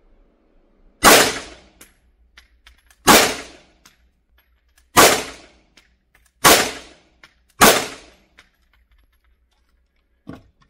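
Five shots from a compensated Canik TTI Combat 9mm Luger pistol, fired about two seconds apart and then faster, each shot ringing briefly in the closed indoor range. A light knock near the end.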